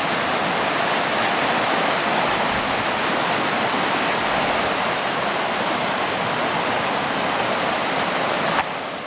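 Fast river rushing over shallow rapids: a steady rush of white water. It drops in level abruptly near the end.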